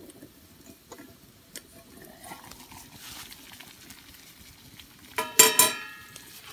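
A campfire crackles under a pot of boiling water, with a few small clicks. About five seconds in, a metal pot lid clatters down onto the steel grill grate and rings briefly.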